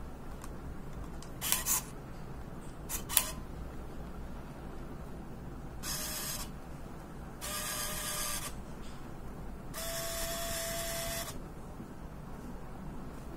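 Olympus AZ-230 Superzoom compact film camera: two sharp clicks in the first few seconds, then the motorised zoom lens whirring in three bursts, each longer than the last, with a steady whine as the lens drives out.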